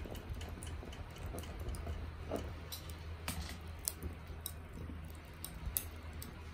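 Binchotan charcoal crackling as it heats: irregular sharp ticks and pops over a steady low hum.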